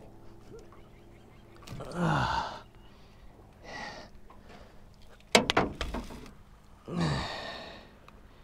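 A man sighing heavily out loud twice, each breath falling in pitch, about two seconds in and again near the end, with a fainter breath between. A single sharp knock comes about five seconds in.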